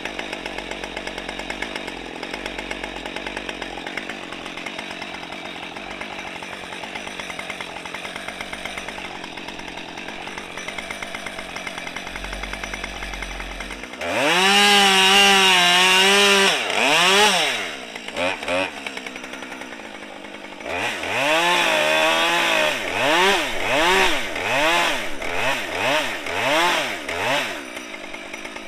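Husqvarna 550 XP two-stroke chainsaw idling, then revved to full throttle for a couple of seconds about halfway through. After that it is worked with short throttle blips, about one a second, with the revs rising and falling.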